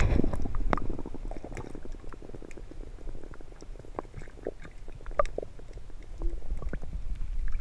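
Water churning and bubbling heard from beneath the surface, muffled, with a low rumble and scattered irregular clicks and pops as a hand moves a fish through the water.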